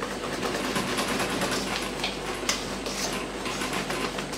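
Wire whisk beating thick chocolate cake batter in a stainless steel bowl: a fast, steady rattle and scrape of the wires against the metal.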